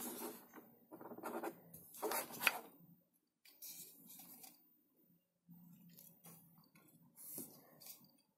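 A small solar floodlight and its cable being handled and turned over: irregular rustling, rubbing and light knocks in short bursts, with a sharp click about two and a half seconds in.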